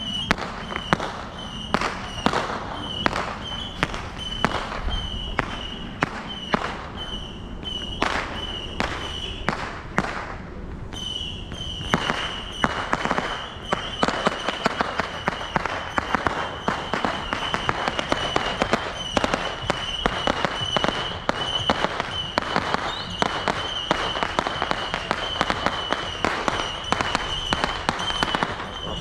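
Fireworks going off in a rapid run of sharp bangs and crackles, several a second, with a steady high tone sounding behind them.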